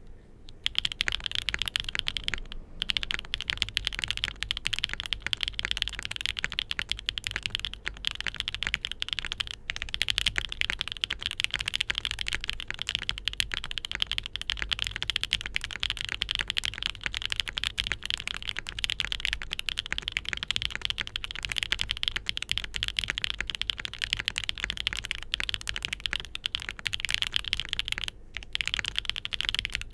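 Rapid typing on a mechanical keyboard fitted with Gateron Smoothie linear switches: full-POM housings, 40 g actuation, 22 mm two-stage springs, factory lubed. A steady stream of keystroke clacks with a few brief pauses.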